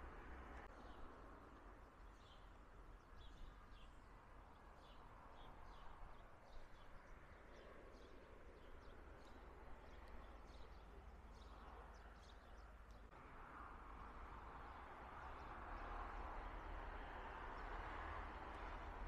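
Faint ambience: scattered short bird chirps over a steady low hiss and a low rumble of wind on the microphone, the chirps thinning out after about twelve seconds.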